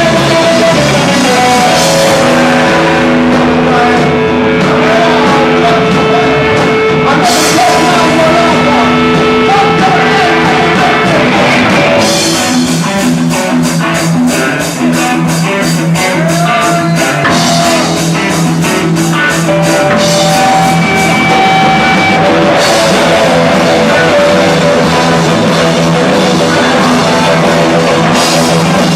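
Punk rock band playing live and loud: electric guitars holding chords over bass and drum kit, with a passage of fast, even drum hits partway through.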